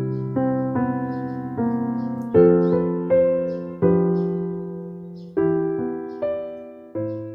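Slow, gentle piano music: notes and chords struck about once a second, each left to ring and fade, with a last low chord struck near the end.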